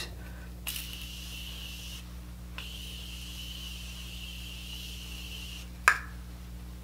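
Morphe Continuous Setting Mist spray bottle misting onto a face in two long, steady hissing sprays, the second about twice as long as the first. A single sharp knock follows near the end.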